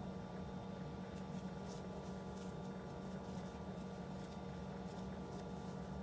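Faint scratchy rustles of yarn being drawn through and wrapped around a crochet hook, a few times, over a steady low room hum.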